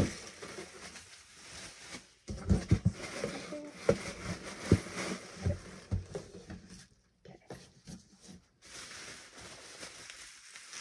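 Cardboard box being handled and shifted, with irregular knocks and scuffs, then a pause. Near the end comes a soft rustle of plastic wrapping.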